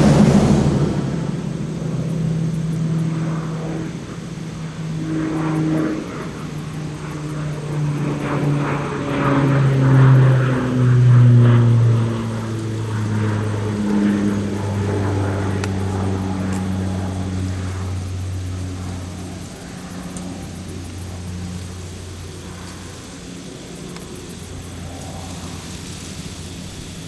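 Federal Signal 2001-SRNB rotating outdoor warning siren winding down at the end of its test, its pitch falling in steps. The sound swells and fades as it goes, then grows fainter over the last several seconds.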